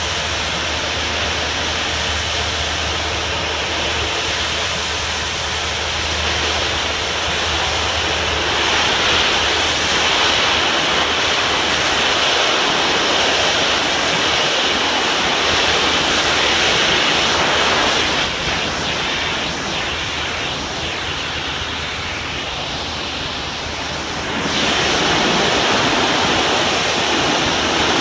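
Pressure washer spray jet hissing as it blasts exposed-aggregate concrete, with a steady low hum underneath. The spray sound softens for several seconds past the middle and comes back louder near the end.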